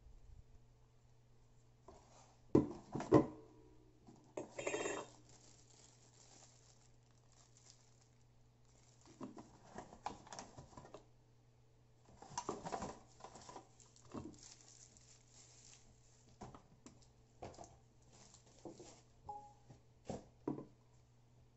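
Unboxing handling noise: a cardboard box, its packing insert and plastic wrapping rustling and crinkling in scattered short bursts, with a couple of sharp knocks about three seconds in as hard parts are put down on the table. A faint steady hum runs underneath.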